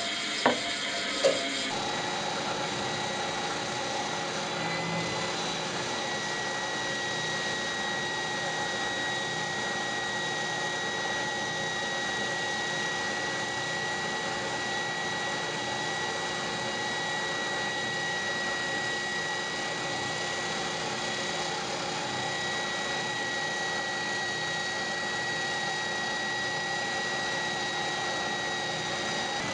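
Oscillating spindle sander running steadily, its motor giving a constant high whine, as the curved edge of a plywood piece is sanded against the spinning drum. Two short knocks about a second in.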